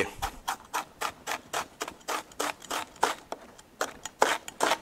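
Chef's knife chopping a quarter of white onion on a plastic cutting board: a steady run of knife strikes, about five a second.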